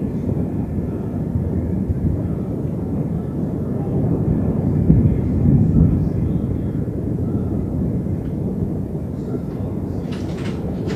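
Continuous low rolling thunder from a severe thunderstorm, swelling louder around the middle.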